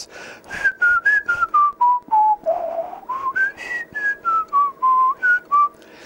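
A person whistling a tune into a handheld UHF radio's microphone. It is a single pure note that steps down in pitch and then back up. The whistle drives the FM deviation to its widest for a modulation-width test. Sharp pulses come with it about four times a second.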